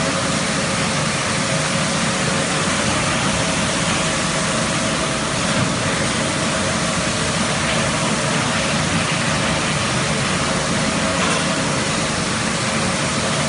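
A 4+2 brush fully automatic carpet washing machine running: a steady, even rush of machine noise with a faint constant hum underneath.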